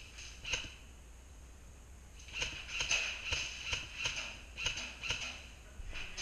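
Footsteps crunching on dry ground: a couple of single steps near the start, then steady walking from about two seconds in, about two to three steps a second.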